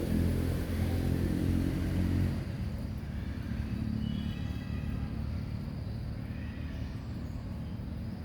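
A motor vehicle's engine running, loudest for the first two seconds and then fading to a quieter rumble.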